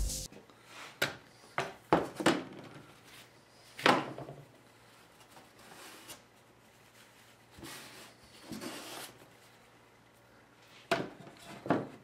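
Scattered knocks and clicks of bar clamps and a wooden workpiece being handled on a wooden workbench, with brief rubbing in between.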